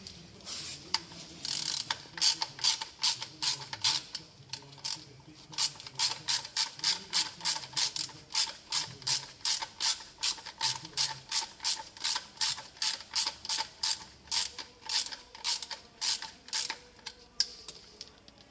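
Hand socket ratchet clicking in quick, even strokes, about three clicks a second, as a bolt on the engine is turned. The clicking pauses briefly a few seconds in and stops shortly before the end.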